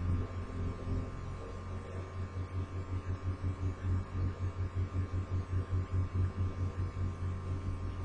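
Steady low hum with a regular pulsing beat, about four to five pulses a second.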